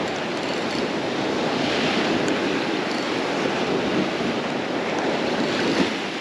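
Surf breaking and washing up a sandy beach in a steady rush, with wind noise on the microphone.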